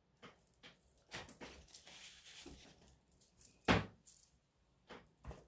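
Makeup products and compacts being handled: a few light taps and a soft rustle, then one sharper, louder knock about two-thirds of the way through and another small tap near the end.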